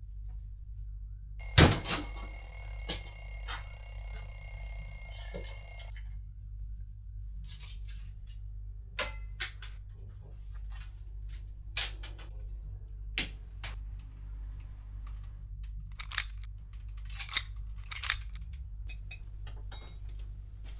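An alarm rings for about four seconds with a high, steady, pulsing tone and cuts off suddenly. It is followed by a series of scattered knocks and clicks of things being handled, over a steady low hum.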